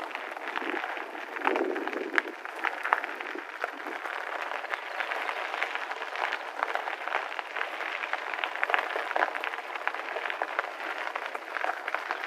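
Bicycle tyres rolling over a gravel path: a steady noise with many small crackles from the stones.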